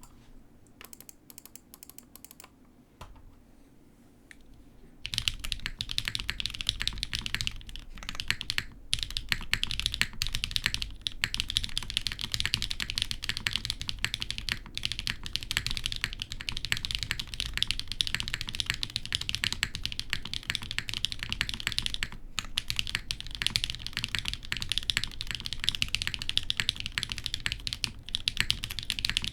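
Fast, continuous typing on a polycarbonate TGR x Singa Unikorn R2.1 mechanical keyboard with lubed Zaku (Tecsee) linear switches on a half POM plate and GMK keycaps. A few light key taps come first, then dense typing starts about five seconds in, with only short pauses.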